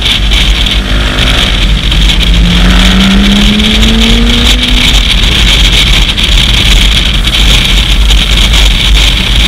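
Heavy wind buffeting on the microphone of a moving KTM 990 Adventure motorcycle, with an engine note underneath that rises slowly in pitch between about one and five seconds in as the bike accelerates.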